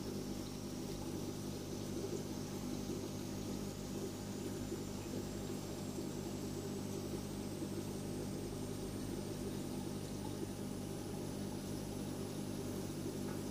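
Aquarium pump running with a steady electrical hum and a light watery hiss. A faint high tone rises slowly in pitch throughout.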